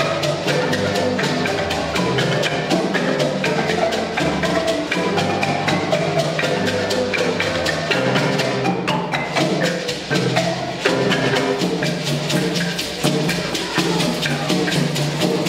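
Marimba ensemble of several large wooden-keyed marimbas playing a fast interlocking pattern, with a drum and a steady rapid rattle of gourd shakers; the music thins briefly about nine seconds in, then carries on.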